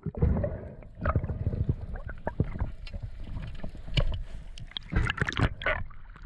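Water splashing and sloshing around the microphone, with irregular sharp knocks and clicks over a low rumble.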